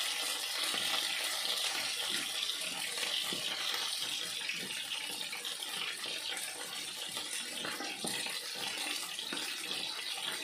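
Battered potato strips deep-frying in a pot of hot oil: a steady sizzle with light crackling.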